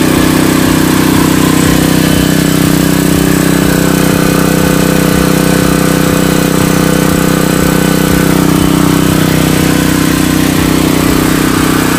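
Extreme ET4000 gasoline inverter generator's conventional engine running steadily under no change in speed, heard very close up. It is loud, about 94 dB at the front panel and 99 dB by the muffler.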